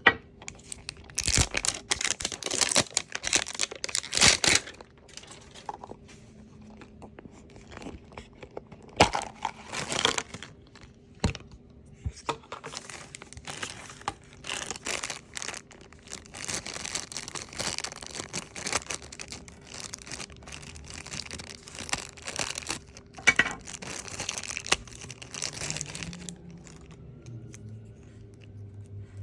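Toy packaging crinkling and tearing as it is unwrapped by hand, in irregular bursts that die down near the end.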